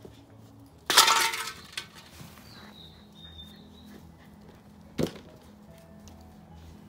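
A loud crash or clatter about a second in, dying away over about half a second, then a single sharp knock about five seconds in, over faint background music.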